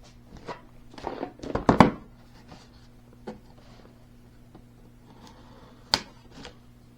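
A box being handled and opened: a cluster of knocks and scrapes, loudest a little under two seconds in, then a few single clicks.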